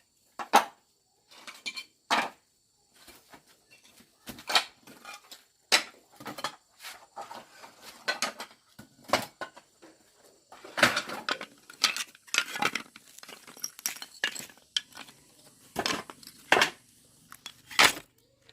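A string of irregular sharp clinks and knocks of hard objects being handled, about one or two a second with short gaps, like pots, dishes and utensils being moved about.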